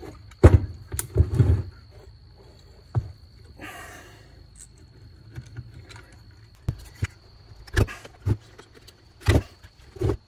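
An old chainsaw's powerhead being handled on a wooden workbench during disassembly: a series of knocks and clunks as it is turned over and set down, loudest about half a second to a second and a half in, with a brief scrape near four seconds.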